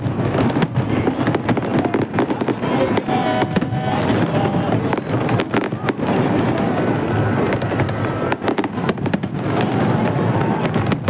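Fireworks going off in rapid succession: a dense run of bangs and crackling reports.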